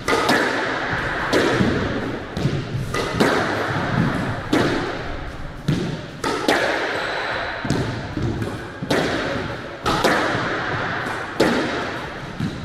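Squash rally: the ball smacking off rackets and the court walls, a sharp hit about every second or so, each with a short echo.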